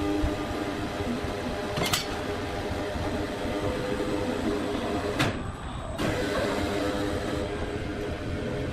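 Machinery running steadily with a low hum and steady tones, broken by two sharp clicks, one about two seconds in and one near the middle.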